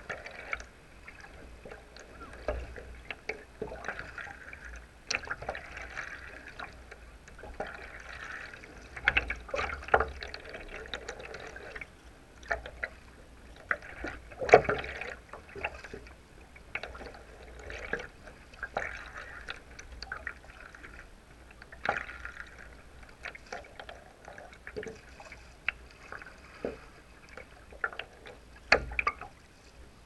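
Double-bladed kayak paddle stroking through calm sea water: irregular splashes as the blades dip in and pull out, with dripping water in between and one louder splash about halfway through.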